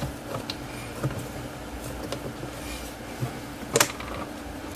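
Plastic case of a Keithley 169 multimeter being handled and fitted together by hand: light clicks and rubbing, with a louder plastic clack about four seconds in and another near the end.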